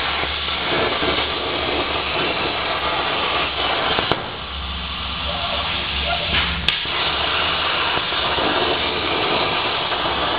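CNC plasma torch cutting stainless steel sheet: a steady hiss with a low hum underneath. There is a sharp click about four seconds in, after which it briefly goes quieter, and another click a couple of seconds later.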